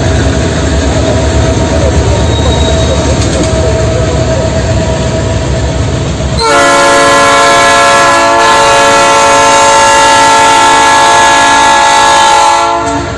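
A diesel freight locomotive, an EMD 710ECO repower, running past close with heavy engine and wheel noise. About halfway through, a multi-note air horn sounds one long steady blast of about six seconds, which cuts off just before the end.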